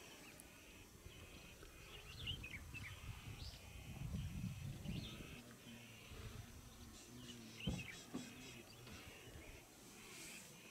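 Faint ambience of scattered short bird chirps and calls over a low rumbling background noise, with one sharp knock a little past the middle.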